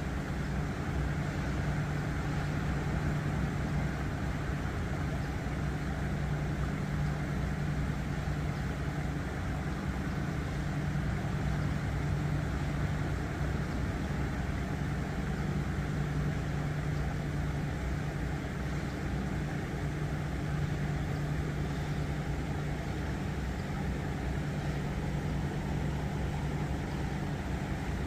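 Steady low rush of flowing creek water with a constant low hum beneath it, unchanging throughout.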